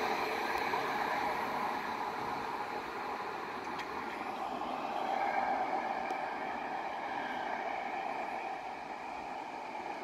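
A museum railcar approaching along the track from a distance, with a steady, fairly even running noise and no distinct horn or clatter.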